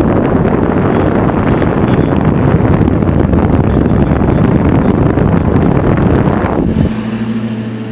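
Electric fan blowing hot air off the wood-stove heat exchanger's radiator, a loud steady rush of air buffeting the microphone. About seven seconds in the rush drops away, leaving a quieter steady hum.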